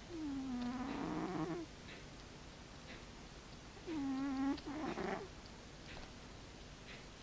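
Domestic cat snoring in its sleep: two snores about four seconds apart, each a low pitched tone that dips and rises again before trailing off into a raspier breath.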